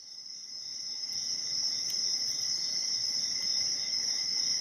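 Steady chorus of crickets, a high continuous trill that fades in over the first second or so.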